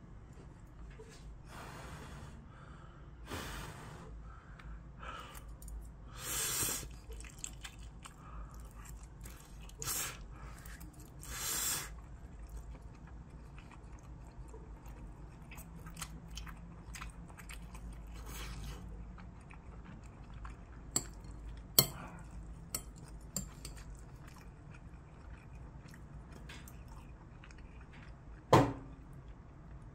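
Someone eating stir-fried instant ramen: chewing, with several short noisy slurps of noodles in the first half. Later come a few sharp clicks of a utensil against the ceramic bowl, the loudest one near the end.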